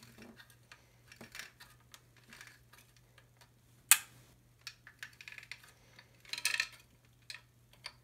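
Hand-cranked paper crimper's gears and rollers clicking unevenly as it is cranked, forcing a stiff headset wire through. One loud sharp click about four seconds in and a short rattle a couple of seconds later.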